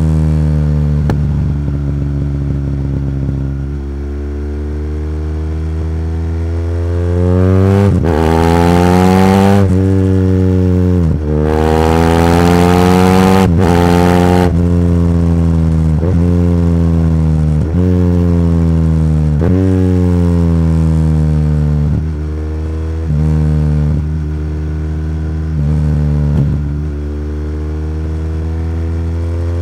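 A 2014 BMW R1200GS's water-cooled boxer twin running through an Akrapovič full exhaust system, under way. The revs climb hard several times around the middle, each climb broken by a sudden drop in pitch at a gear change. After that the engine speed rises and falls in a run of shorter swells.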